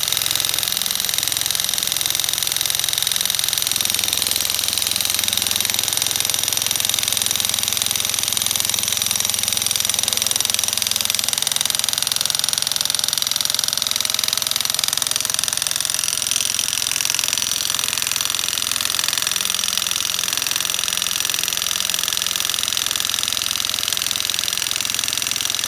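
Corded electric jackhammer running continuously, driving a 50-inch steel pin through a Diamond Pier concrete footing into frozen ground.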